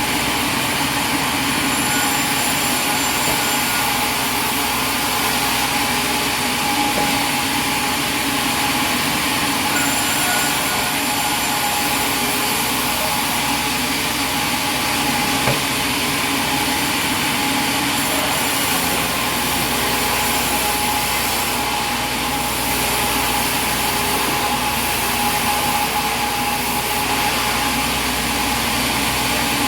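Sawmill machinery running steadily: a constant mechanical hum with a steady whine.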